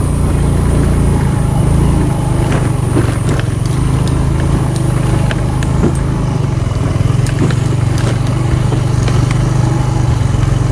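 Motorcycle engine running at a steady pace while riding, with scattered short clicks and rattles over it.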